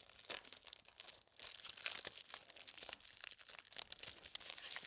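Plastic shrink-wrap being torn and crumpled off a Blu-ray case: a dense run of quick crinkles and crackles.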